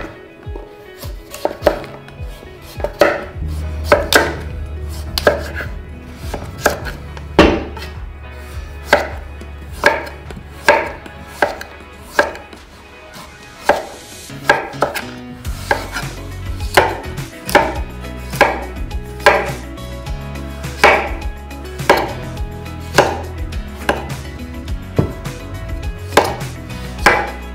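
A thin-bladed chef's knife slicing the hard skin off a grey Jarrahdale pumpkin, each downward cut ending in a sharp knock of the blade on a wooden chopping board, about one or two knocks a second throughout.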